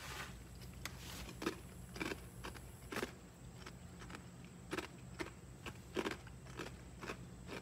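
A mouthful of crunchy Taco Bell cheddar crisps being chewed with the mouth closed: a string of soft, irregular crunches over a low steady hum.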